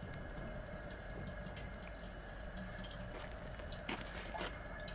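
Propane turkey-fryer burner running steadily after lighting, a continuous flame rush with a faint steady whine, and a couple of light clicks near the end.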